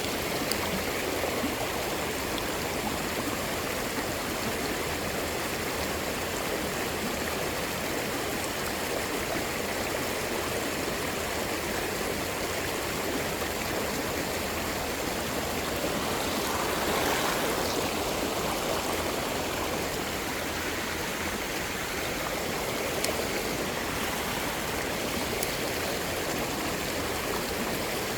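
Creek water rushing steadily, swelling slightly a little past the middle.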